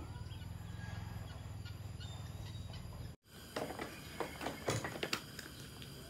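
Outdoor rural ambience with a steady low hum and a bird calling faintly. About three seconds in this gives way to a run of light clicks, taps and rustles as cups, utensils and plastic bags are handled on a wooden deck.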